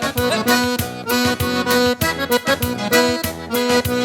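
Accordion playing a lively instrumental intro to a sertanejo dance song over a steady beat.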